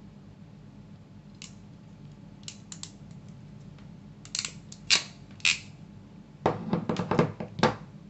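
Crimping pliers clicking as a terminal is crimped onto a wire: several sharp clicks. Near the end comes a quick clatter of knocks as the metal tool is handled and set down on a hard table.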